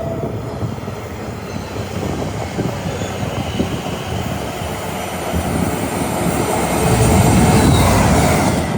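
A train passing at speed: a dense rumble of wheels on rail that swells to its loudest near the end, then cuts off suddenly.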